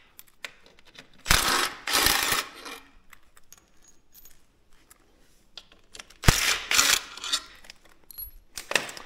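A new ATV stator being unpacked and handled: packaging rustling in two bursts, about a second in and again about six seconds in, with small metallic clinks and clicks in between.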